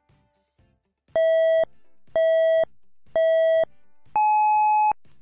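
Electronic countdown beeps: three short beeps of the same pitch about a second apart, then a longer, higher beep, over faint background music.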